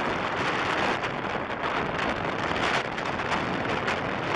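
Storm wind gusting across the microphone, over rough surf washing onto the beach.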